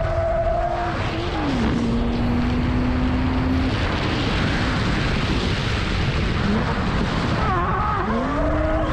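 BMW E36 drift car at speed: engine running and tyres squealing while it slides, with heavy wind rumble on the microphone. A steady tone drops in pitch about a second and a half in and holds, a rushing noise swells in the middle, and wavering tones return near the end.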